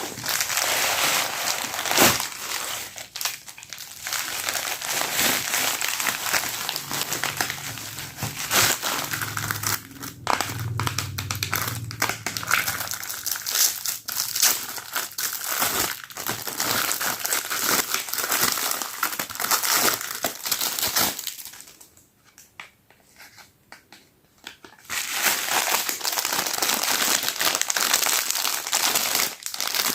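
Parcel packaging crinkling and rustling as it is handled and opened, with a pause of a few seconds about two-thirds of the way through.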